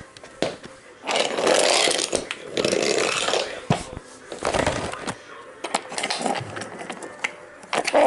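Wooden toy trains and track being handled: rough scraping and rubbing in bursts of about a second, with scattered light knocks and clicks.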